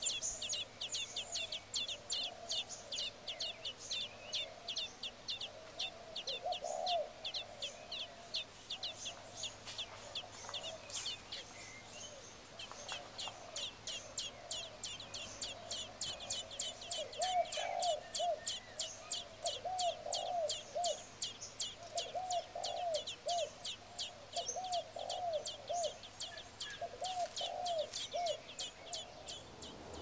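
Nestling songbirds begging with rapid, high chirps, about four or five a second, easing off briefly around the middle. From about two-thirds of the way through, short groups of lower, softer notes join in.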